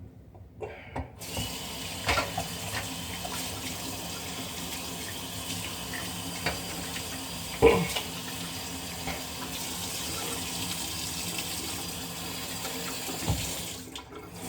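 Bathroom sink tap running with water splashing into the basin, turned on about a second in and off just before the end. A few knocks sound against the sink, the loudest about halfway through.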